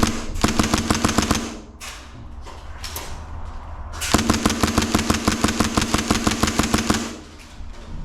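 Airsoft rifle firing on full auto: a burst of about a second and a half at the start, then a longer burst of about three seconds starting about four seconds in, each a rapid even string of shots over a steady hum.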